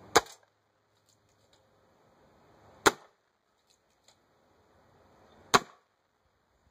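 Three shots from a .22 Gamo Urban pre-charged pneumatic air rifle firing pellets into a ballistics gel block, each a single sharp crack, spaced about two and a half seconds apart.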